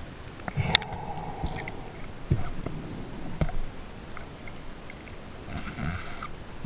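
Underwater sound as picked up by a diver's camera: a steady low hiss with scattered sharp clicks and knocks, and a few short gurgles.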